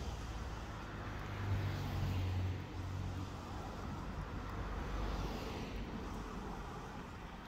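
Outdoor street ambience with a steady low rumble of traffic-like noise, swelling briefly between about one and a half and two and a half seconds in.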